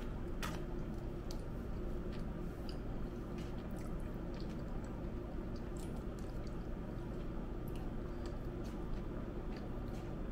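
Someone eating leftover food: scattered faint clicks and handling sounds of food and plates over a steady low room hum.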